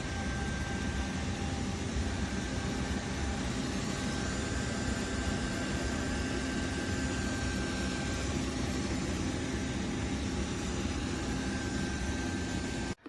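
Suction motor of a Dreame L10s Ultra robot vacuum and mop running steadily: an even whoosh with a faint high whine, cutting off abruptly near the end.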